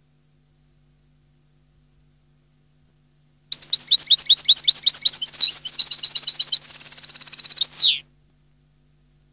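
European goldfinch singing: a quick run of high twittering notes starting about a third of the way in, changing into a fast even trill and ending on a falling note, about four and a half seconds in all.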